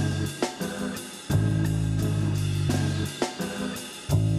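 Music from a DJ mix: drums with long held bass notes, one fading out just after the start, the next coming in about a second in and another near the end, with sharp drum hits in the gaps.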